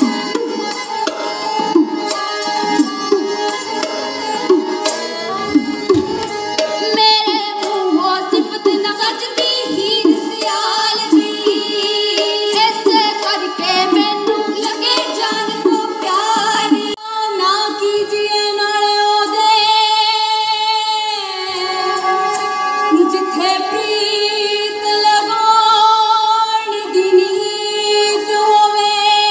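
Women's voices singing a Punjabi folk performance piece in long ornamented lines, accompanied by a hand drum. The drumming thins out about halfway through while the voices hold long wavering notes.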